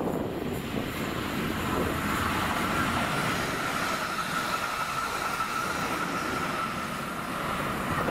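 Class 360 Siemens Desiro electric multiple unit passing close by without stopping: wheels running over the rails with a steady rumble, and a steady high whine from about two seconds in.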